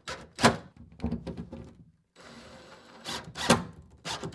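Separate sharp knocks and taps of a cordless impact driver and screws against the wooden sauna bench as the bench screws are set, a handful of single strikes rather than a continuous run of the driver.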